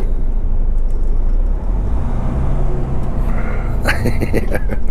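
Articulated truck's diesel engine running at low revs with the throttle eased off, as the tractor unit fails to get traction pulling away uphill on ice with an empty trailer. A steady low hum comes in about halfway through.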